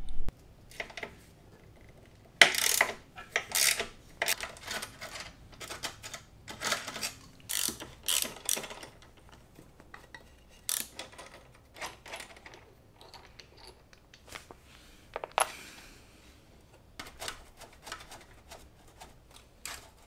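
Ratchet wrench clicking and metal tools and parts clinking in short, irregular runs as the bolts holding a motorcycle's stock exhaust silencer are undone.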